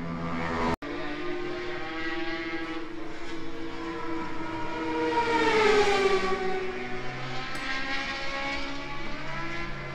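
Benelli 750 Sei air-cooled inline six-cylinder engine running through its six open racing exhausts, revved up once to a peak about halfway and let fall back. The sound cuts out for an instant just under a second in.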